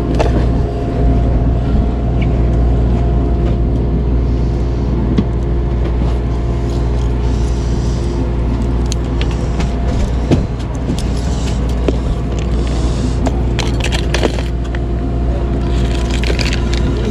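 Steady low drone of the fishing boat's engines running, heard on deck, with a few short knocks and clicks over it.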